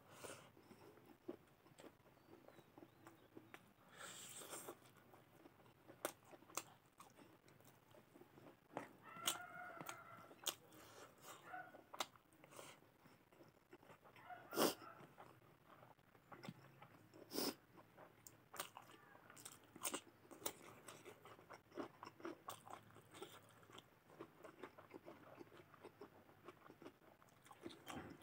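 Close-miked mouth sounds of a person eating rice and mutton curry by hand: quiet chewing with wet smacks and crisp crunching bites, a run of short sharp clicks, two of them louder about midway.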